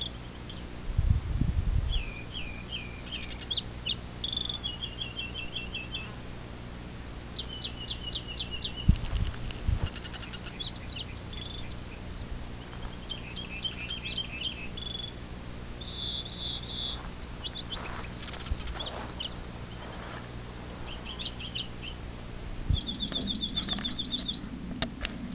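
Rock wren singing: short phrases, each a quick run of the same note repeated several times, switching to a new phrase after each run. A couple of low thumps and a steady low drone lie under it, and the drone grows stronger near the end, from a jet airliner overhead.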